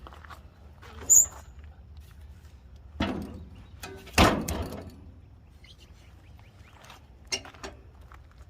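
Knocks and thuds from logs and sawmill parts being handled and set in place, the two loudest about three and four seconds in, with a short high chirp about a second in and two sharp metal clicks near the end, over a low steady hum.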